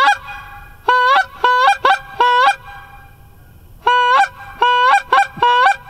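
Hand-blown goose call sounding Canada goose honks: two runs of quick honks, each note breaking upward in pitch, with a pause of just over a second between the runs.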